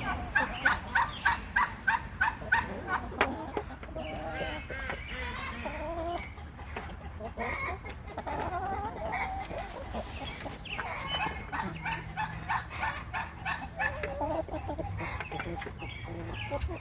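Backyard hens clucking, with two runs of quick repeated clucks, about three a second, near the start and again past the middle, and softer calling in between.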